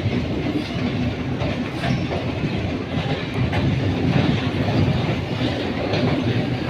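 Steady rumbling running noise of a vehicle in motion, with faint irregular clicks.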